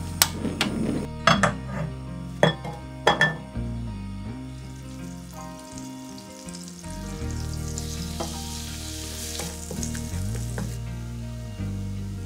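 Melted butter sizzling in a saucepan, the sizzle growing louder a little over halfway through as flour is stirred in, over light background music. A few sharp clicks come in the first few seconds.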